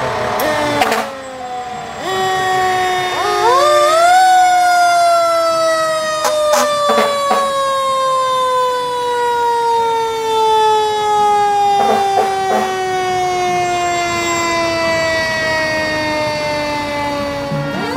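Fire engine siren winding up in pitch over about two seconds, then slowly falling in a long glide for more than ten seconds as it winds down. A few short sharp sounds come through twice along the way.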